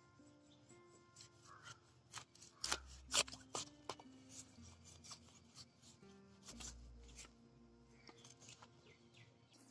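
Large curved knife cutting fish on a wooden chopping block: short scraping and cutting clicks, loudest in a cluster about three seconds in, over soft background music.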